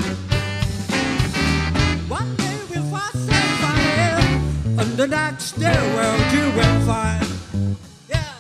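A band with a brass section playing an instrumental passage of a blues song, with bass and drums under the lead lines. The music drops away briefly near the end.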